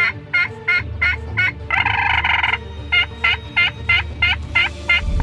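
ECW pot-style friction turkey call worked with a striker, sounding a run of yelps at about three a second, each note breaking from high to low. A little under two seconds in, the yelps give way to about a second of unbroken calling, then the yelps resume. A steady low hum runs underneath.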